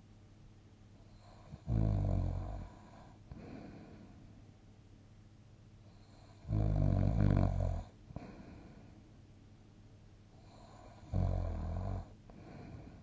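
A person snoring in sleep: three loud snores about four to five seconds apart, each followed by a softer breath out.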